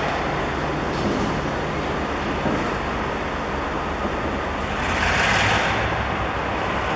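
Diesel-electric locomotive running light at shunting speed, heard as a steady low engine rumble mixed with road traffic noise, with a brief hiss swelling about five seconds in.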